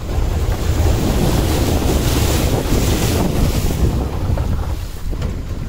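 Wind buffeting the microphone in a moving open-top jeep, loud and gusty, with the vehicle's low rumble underneath.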